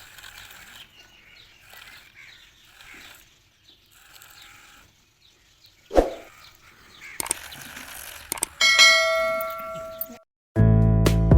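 A sharp click, then a bell-like ding that rings for about a second and a half, after faint rustling. Acoustic guitar music starts near the end.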